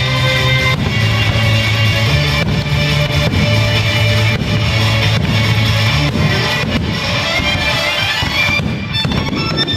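Rock-style music with a drum kit, guitar and a steady bass line.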